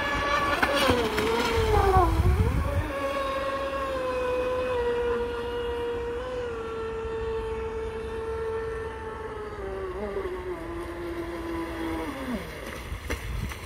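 Radio-controlled RSV Raptor boat's Lehner 3040-10 brushless electric motor, on a 10S battery, whining at speed. The pitch wavers over a low rumble for the first couple of seconds, then holds steady and slides slowly lower before falling away quickly near the end.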